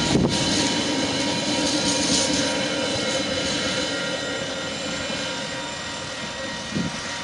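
Tail end of a TasRail freight train, its wagons rumbling over the track as they roll away from the level crossing, the sound slowly fading.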